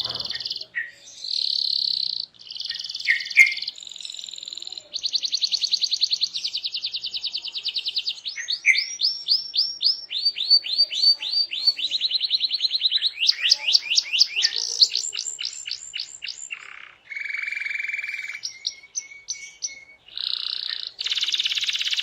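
Domestic canary singing a long, continuous song of changing phrases: buzzy rolls, fast trills of rapidly repeated notes and quick rising and falling sweeps, broken only by brief pauses.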